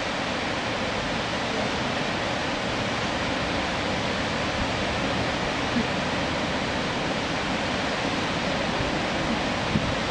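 Steady outdoor rushing noise, even and unbroken, with a couple of faint taps.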